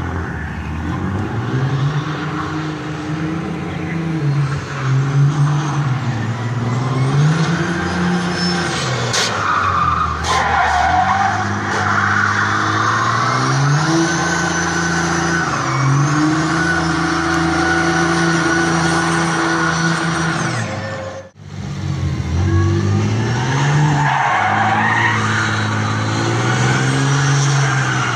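Cummins ISB turbo-diesel in a Ford F1 pickup revving up and down hard while the rear tyres squeal and skid through burnout donuts.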